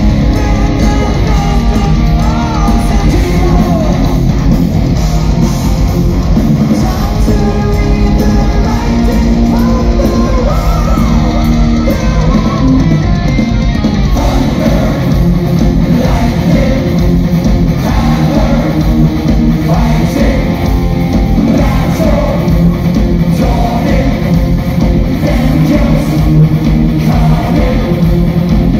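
A power metal band playing live and loud: a male singer over distorted electric guitars, bass and drums.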